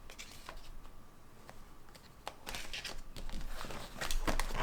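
Light rustling and small clicks of paper and plastic being handled, with the rustling getting busier about halfway through.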